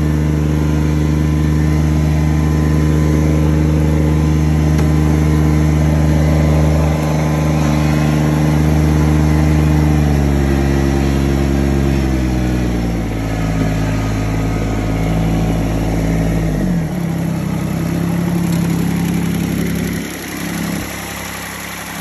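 Kubota BX1850's three-cylinder diesel engine running steadily at a raised speed. From about ten seconds in the engine speed drops in a few steps, then runs on at a low idle.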